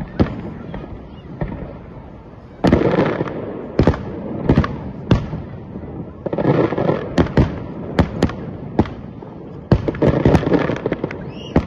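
Aerial firework shells bursting overhead: a quick series of sharp bangs, about a dozen, with three longer stretches of noisy crackle between them.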